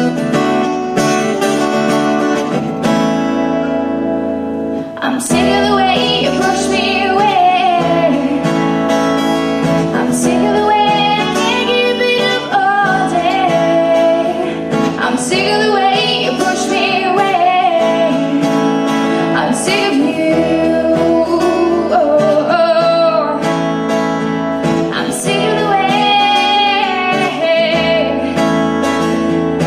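A woman singing to her own strummed acoustic guitar in a live performance. The guitar plays alone at first, and her voice comes in about five seconds in.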